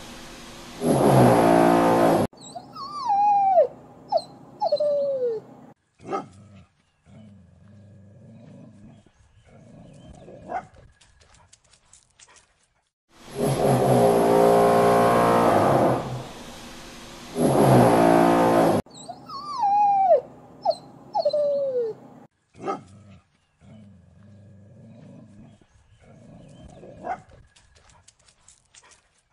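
Dog whimpering and whining in short high cries that slide down in pitch, among scattered clicks and quieter low sounds, alternating with louder stretches of a steady engine-like drone. The whole sequence plays twice.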